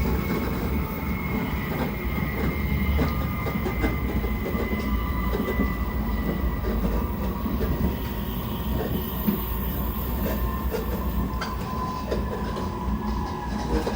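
Shinkansen passenger car running at speed, heard from inside: a steady low rumble with frequent irregular knocks and rattles, and a faint thin whine held above it. The rider finds it louder than usual and wonders whether it is an abnormal noise (異音) or still within the normal range.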